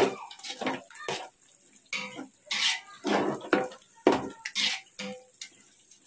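Ladle stirring and scraping thick masala paste with fresh coriander and mint in a cooking pot: uneven scrapes and knocks against the pot about once or twice a second.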